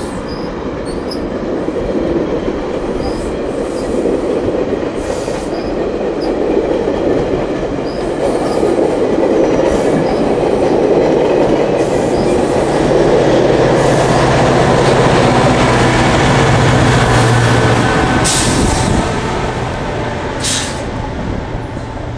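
GO Transit bilevel commuter train rolling past as it leaves the station, with a steady noise of steel wheels on rail that builds up. About thirteen seconds in, the MP40PH-3C diesel locomotive pushing at the rear goes by and its engine adds a steady low hum for several seconds. The sound then eases off.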